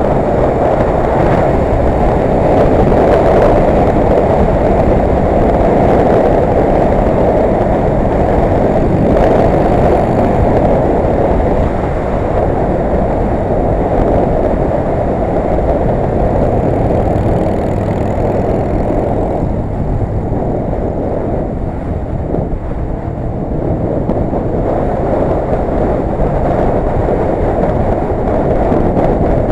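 Steady wind rush and road noise on a motorcycle-mounted camera at riding speed, with the motorcycle's engine running underneath. The rush eases a little about two-thirds of the way through.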